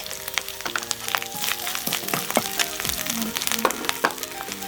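Ground marauti paste frying in hot oil in a pan, sizzling with many sharp crackles, over background music with held notes.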